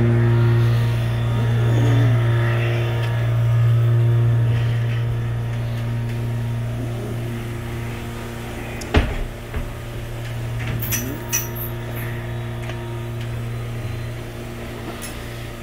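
Steady low electrical hum of dairy barn equipment, with a single sharp knock about nine seconds in.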